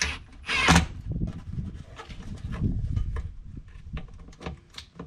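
Handling noises as a soft door bag is fitted to a UTV door: two short rasping scrapes near the start, the second the loudest, then low uneven rubbing and bumping with a few small clicks.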